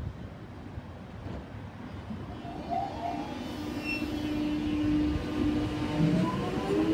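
Electric suburban train pulling away from the platform: a low rumble that slowly grows louder, a steady motor hum in the middle, and near the end several rising whines as the traction motors speed up.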